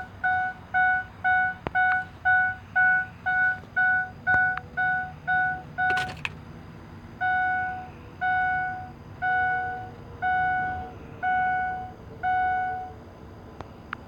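Truck dashboard warning chime beeping, about two short beeps a second, then a sharp click about six seconds in, then slower, longer beeps about once a second that stop near the end. A faint steady whine runs underneath from about nine seconds, and no engine is heard running.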